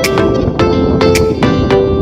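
Intro music: a guitar-led track with plucked notes over a steady beat.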